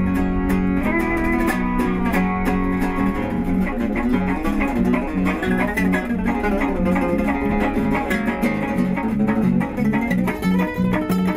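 Instrumental intro of a country song played on guitars: quick picked guitar notes over a repeating bass line, without vocals.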